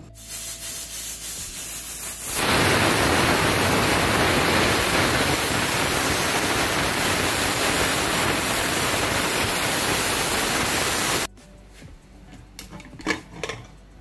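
Hawkins pressure cooker on a gas flame venting steam through its weighted valve, the sign that it has come up to pressure. It starts as a softer hiss and after about two seconds becomes a loud, steady hiss, which cuts off suddenly near the end.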